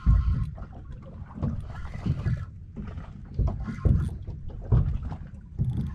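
Water slapping against the hull of a small open fishing boat at sea, with wind on the microphone: a low rumble broken by irregular low thuds about every second.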